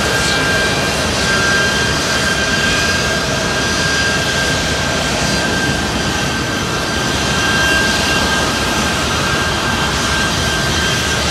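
Jet aircraft engine noise, a steady loud roar with a high whine held over it.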